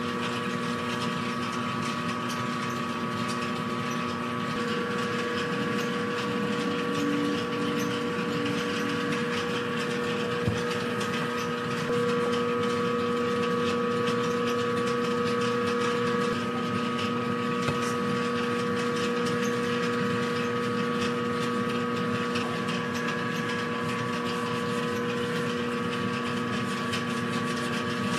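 Steady hum of kitchen machinery running, several fixed tones over a noisy bed, a little louder from about twelve seconds in, with a few faint clicks and knocks.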